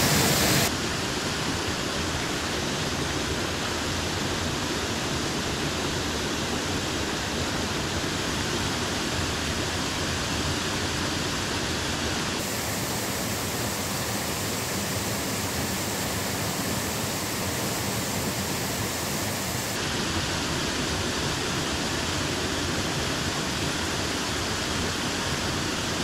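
Steady rush of water spilling over a small concrete weir into a creek pool. Its tone changes abruptly twice, about halfway through and again later.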